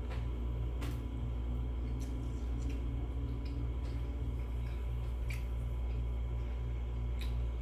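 Eating sounds: several small, sharp mouth and chewing clicks, spaced irregularly a second or so apart, over a steady low hum.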